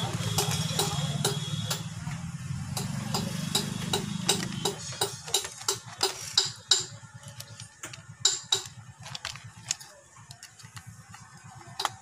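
Irregular small clicks and taps of a screwdriver and copper wire working the brass terminal screws of a plastic switch-and-socket board on a tile floor, as the phase wire is fastened to the switch. A low steady drone sits underneath for the first four or five seconds, then fades.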